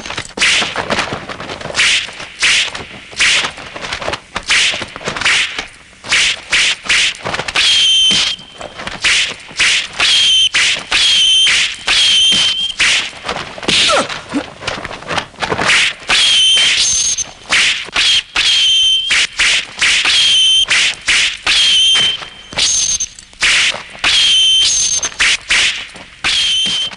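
Martial-arts film fight sound effects: a fast, almost unbroken run of whooshes and hard hits, many of them ending in a clear metallic ring like blades clashing.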